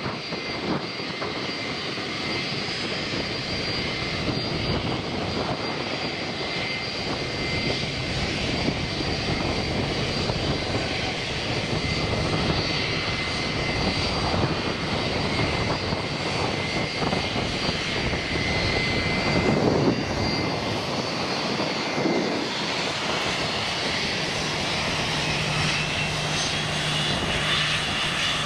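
Aircraft engines running: a steady rumble with a constant high whine.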